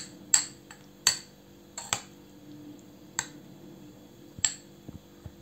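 Metal spoon clinking against the rim and sides of a small ceramic bowl while stirring a thick sour-cream and grated-cheese sauce, a sharp ringing clink about every second, irregular.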